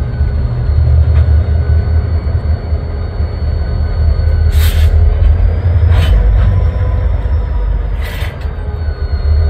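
EMD GP40-2 diesel-electric locomotives idling with a steady low rumble, broken three times by short hisses of air at the coupling between the locomotive and the side dump car.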